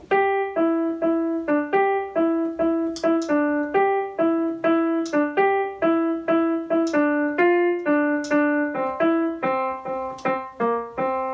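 Digital piano playing a single-line melody in plain, even notes, about three a second, with no syncopation: the tune set out straight and steady. Near the end a longer note is held.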